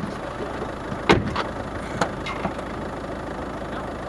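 A car engine idling steadily, with a few sharp knocks in the first half as the single-cylinder Deutz stationary engine is readied for a tow start.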